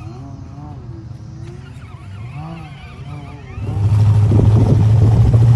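Engine of a full-size off-road vehicle running, with its pitch rising and falling. About two-thirds of the way in it suddenly gets much louder and settles into a steady heavy drone close by.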